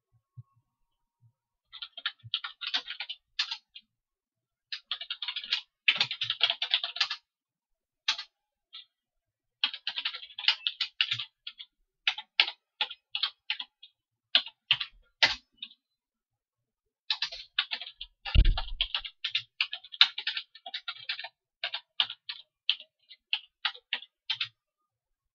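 Typing on a computer keyboard in bursts of rapid keystrokes separated by short pauses. A heavier thump comes about two-thirds of the way through.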